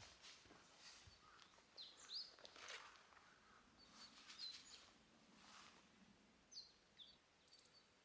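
Faint wild bird calling outdoors: short, high, falling chirps repeated many times, with some soft rustling noise in between.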